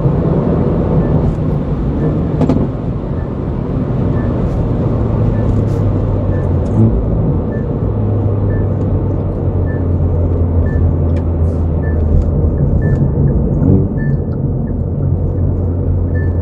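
Hyundai Veloster N's turbocharged 2.0-litre four-cylinder engine and exhaust droning steadily at cruise, heard inside the cabin along with tyre and road noise. A light tick repeats evenly about twice a second through most of it: the turn-signal indicator.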